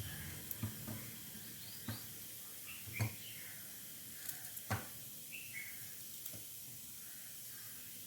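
Scattered light clicks and knocks of kitchen utensils being handled, the loudest about three seconds in and again near five seconds, over a faint hiss. A bird chirps a few times in the background, in short pairs of falling notes.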